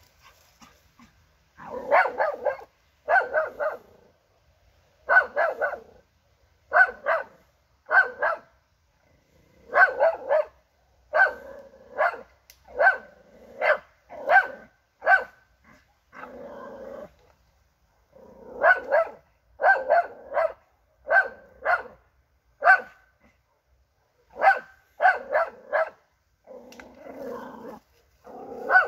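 Young Jagdterrier barking at a wild boar in a training pen: short, sharp barks in rapid bursts of two to four, over and over. A couple of longer, lower sounds come near the middle and near the end.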